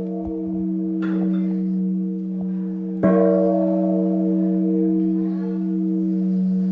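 Large Vietnamese temple bell (đại hồng chung, 160 kg) ringing with a deep, slowly pulsing hum. It is struck again with its striker about three seconds in, and a fresh ring swells over the fading one.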